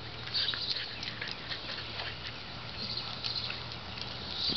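A dog sniffing and snuffling in short puffs, over a steady low hum.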